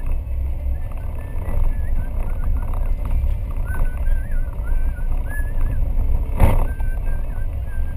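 4x4 driving slowly on a dirt track, heard from inside the cabin: a steady low engine and tyre rumble, with a high wavering squeak coming and going. A single thump about six and a half seconds in.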